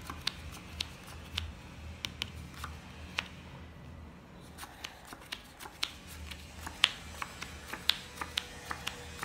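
Playing cards being dealt one at a time onto a felt table, each one landing or being flicked with a short crisp snap, about two a second, with a pause of about a second just before the middle.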